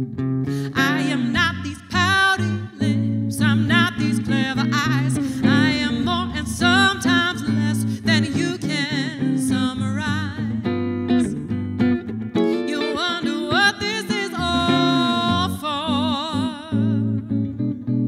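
A woman singing a song live to guitar accompaniment, her voice sliding and holding a long wavering note with wide vibrato about three-quarters of the way through.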